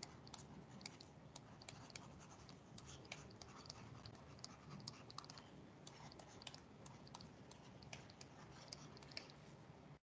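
Faint, irregular tapping and scratching of a stylus writing by hand on a tablet, over near-silent room tone.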